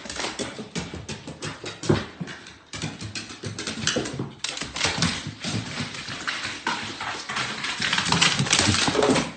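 A dog making noises over a rapid, irregular clatter of taps that gets louder near the end.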